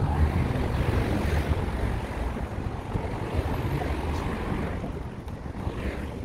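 Wind buffeting the microphone outdoors on a city walk, a steady rushing rumble over street background noise. It swells about a second in and eases off toward the end.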